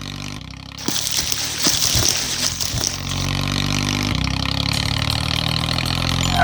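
An engine running steadily, a bit louder from about three seconds in.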